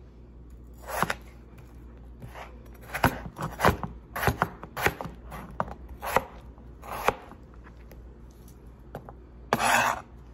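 Cleaver chopping a potato into cubes on a cutting board: a string of sharp, irregular knocks of the blade through the potato onto the board. Near the end, one longer scrape as the cut pieces are swept up with the blade.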